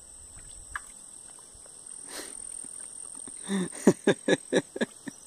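Steady high-pitched insect buzz, cricket- or cicada-like. Past the middle it is joined by a quick series of about eight short, loud, pitched pulses, the loudest sound here.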